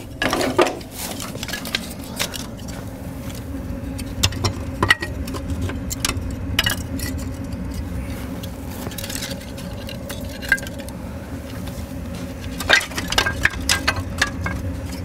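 Dry wooden kindling sticks knocking and clattering as they are placed by hand into the steel log chamber of a log boiler, in scattered clicks and clusters of knocks. A steady hum from the boiler's fan runs underneath.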